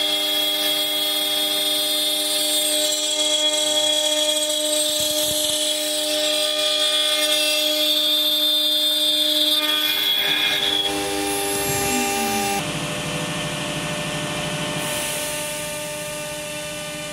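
CNC router spindle milling a block of aluminium, a steady whine of several tones over the noise of the cut. About three-quarters of the way through it falls in pitch and gives way to a quieter, lower machine hum.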